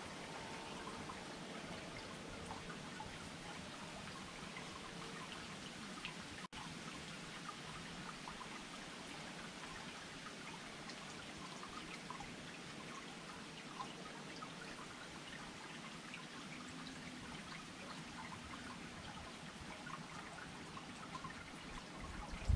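Small garden fountain trickling steadily, a soft continuous splash of water flecked with tiny drips.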